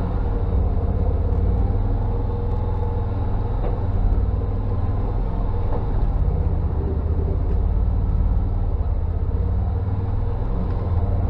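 UTV engine running steadily while the machine is driven, a continuous low drone.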